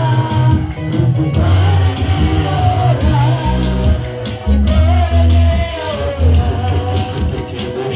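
Live worship music: a lead voice singing over bass, keyboard and drums with a steady beat.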